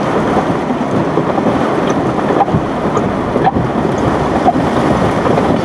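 A vehicle driving slowly on a wet, soft gravel road: steady tyre and running noise with scattered small ticks.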